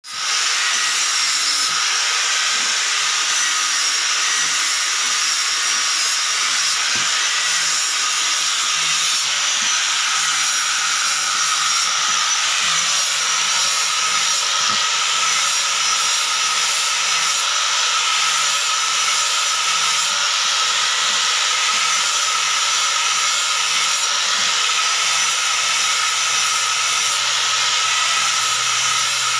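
Electric angle grinder running continuously with an abrasive disc pressed against the face of a hardwood slab, sanding it smooth: a steady high motor whine over a hissing grind.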